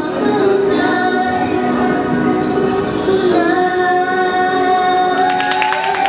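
Two young girls singing into microphones over a backing track, ending the song on a long held note. Clapping breaks out near the end.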